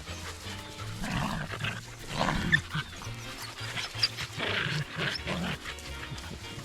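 Dogs growling in play, several short growls, over background music.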